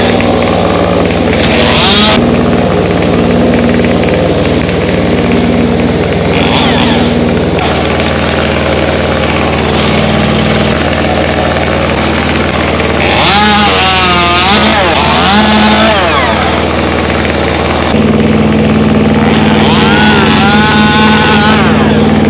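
An engine running steadily and loudly, shifting speed about a third of the way in and again near the end, with a wavering high-pitched sound over it twice in the second half.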